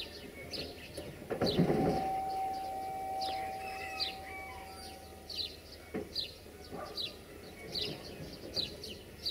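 A train horn sounds one long steady note, with a fainter lower note under it, held about four seconds. A bird chirps repeatedly throughout.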